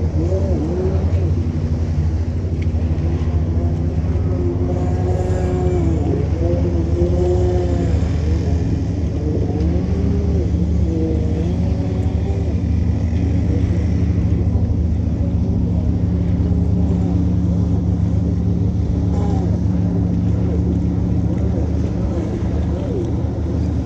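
Kawasaki X2 stand-up jet ski's two-stroke engine revving up and down over and over in the distance as it is thrown through freestyle tricks. Under it runs a steady low drone from a nearby idling engine.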